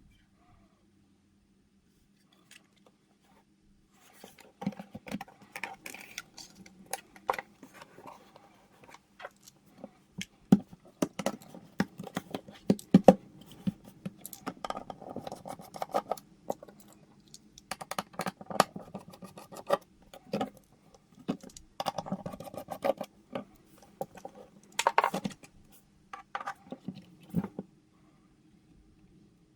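Irregular clicks, knocks and scraping of hands working on the plastic and metal parts of an HP Pavilion Mini 300 mini desktop while it is being opened for a hard drive replacement. The handling starts about four seconds in and stops shortly before the end, over a faint steady hum.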